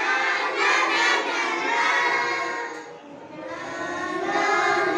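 A group of young children singing together in chorus, with a short break about three seconds in before the next line.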